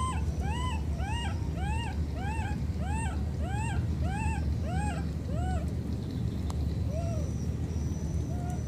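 Baby macaque crying: a run of short rising-then-falling calls, about one every half second, that stops around five and a half seconds in, followed by two single calls near the end.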